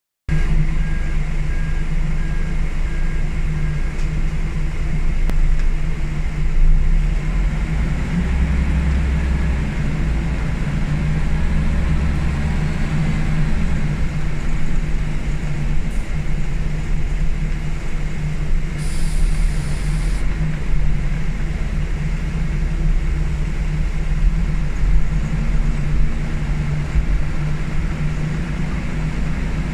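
Scania L94UB single-deck bus under way, heard from inside the saloon: its diesel engine's steady drone with road noise, the engine note shifting as the throttle changes. A brief hiss of air sounds about two-thirds of the way through.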